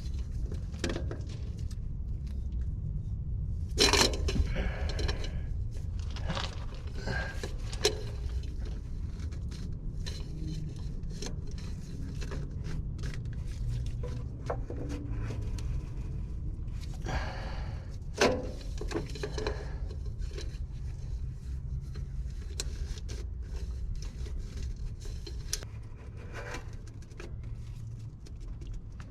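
Scattered scrapes and light metallic clinks of tools and parts being handled, over a steady low rumble.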